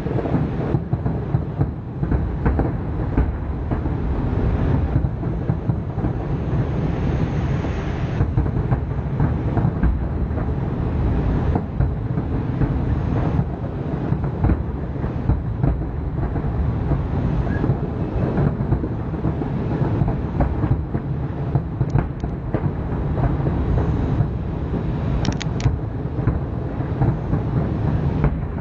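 Aerial fireworks display: shell bursts follow one another so closely that their bangs merge into a continuous rumble, with sharper cracks standing out here and there.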